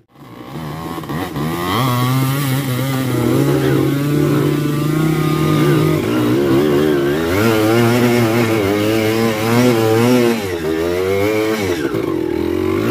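Dirt bike engine revving up and down over and over, its pitch rising and falling as the throttle is worked on a rough trail.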